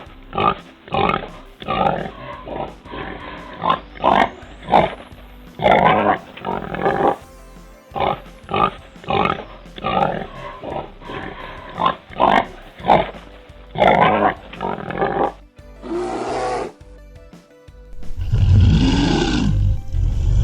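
Domestic pig grunting in a long run of short, irregular grunts, with background music. Near the end the grunting gives way to a louder, deeper animal call.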